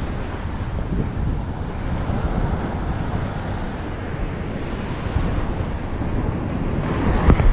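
Ocean surf breaking and washing up a sandy beach, with wind buffeting the microphone; the rush grows louder near the end.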